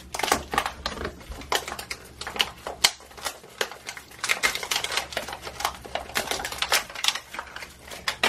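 Clear plastic wrappers crinkling and small hard-plastic Shopkins blind-pack capsules clicking as they are unwrapped and pried at by hand, a rapid, irregular run of crackles and clicks.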